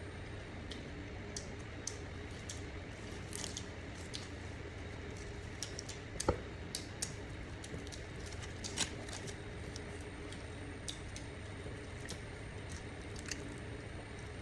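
Quiet eating and food handling: scattered soft clicks and squishy sounds over a steady low hum, with one sharper click about six seconds in.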